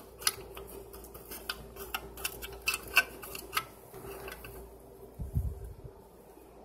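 Irregular light clicks and taps of plastic parts being handled at a refrigerator's compressor compartment, over a faint steady hum. One dull low thump comes about five seconds in.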